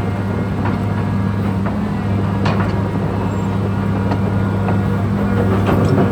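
Diesel engine of a John Deere 200C LC excavator running steadily, with a few short metallic clanks from the machine. The seller suspects a weak injector from the engine's noise and smoke.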